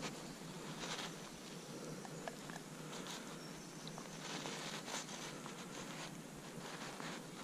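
Faint rustling and soft scratching of a landing net's mesh as hands work at the mouth of a small carp to unhook it. A few tiny clicks come through over a steady faint hiss.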